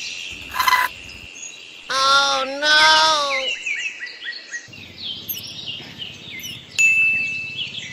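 Small birds chirping in quick repeated notes. Two short pitched cries come about two seconds in and are the loudest sounds, and there is a brief click and thin high tone near the end.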